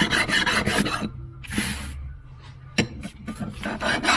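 Hand file rasping across the base flange of a Holley 94 carburetor in quick, even strokes, taking down its high spots to make the base flat. The strokes stop about a second in, followed by a short scrape and a few light knocks, then a few more strokes near the end.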